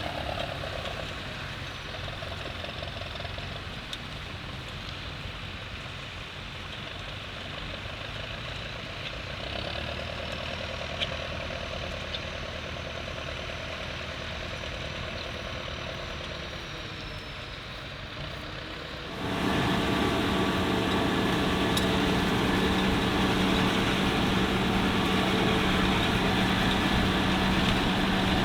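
Tractor engines running steadily. About two-thirds of the way through, the sound jumps suddenly louder to a closer engine with a steady low hum.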